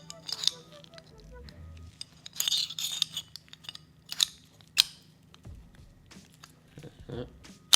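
Airsoft pistol parts clicking and clinking as the inner barrel is fitted into the outer barrel during reassembly, with a rattle a little over two seconds in and two sharp clicks around four and five seconds in. Soft background music plays underneath.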